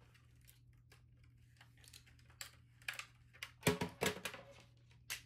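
Irregular rustles, taps and clicks of something being handled, with the loudest cluster about three to four seconds in, over a faint steady hum.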